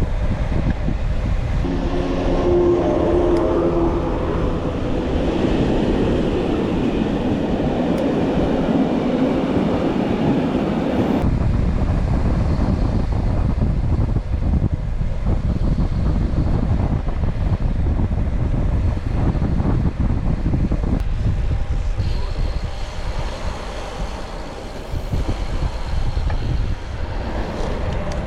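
Wind rushing over the microphone with steady road rumble from a road bike ridden fast. A louder vehicle passes during the first ten seconds, with a short pitched horn-like tone about two to four seconds in. The sound changes abruptly about eleven seconds in.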